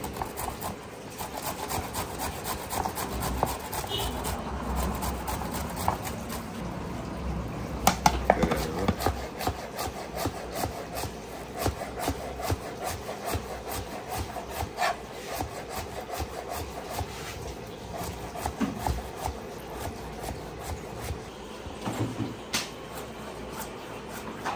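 Rapid repeated scraping strokes during food preparation, with scattered sharper knocks; the loudest knocks come about eight seconds in.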